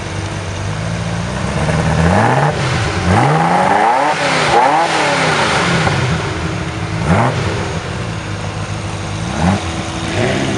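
Ferrari F40's twin-turbo V8 idling, then revved hard while standing: a cluster of rising and falling revs about two seconds in, then two single blips later, each dropping back to idle. The sound cuts off abruptly at the end.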